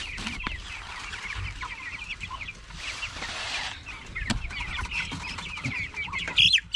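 A flock of three-week-old native chicks peeping and clucking without pause, in many short rising calls, with a louder call near the end. A few sharp knocks and a brief rustle are heard among them.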